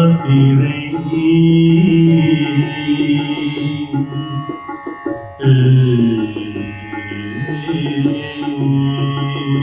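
Tamil devotional song: a man's voice holds the last word of the refrain, then the instrumental backing music carries on without words.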